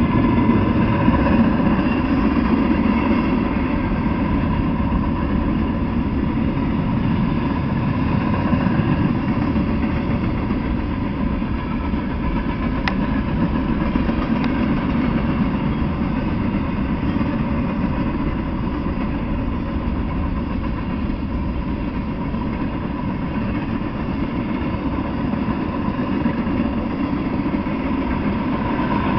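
Mixed freight train cars (boxcars, tank cars, covered hoppers, flatcars) rolling past: a steady, unbroken rumble of steel wheels on rail, with a thin steady tone above it.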